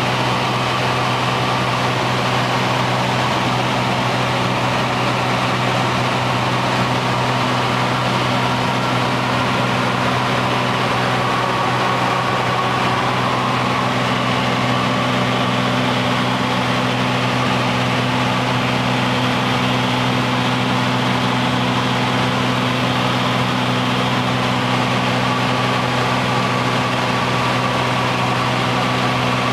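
Cessna U206G's six-cylinder piston engine and propeller running steadily in flight, a constant drone heard inside the cabin.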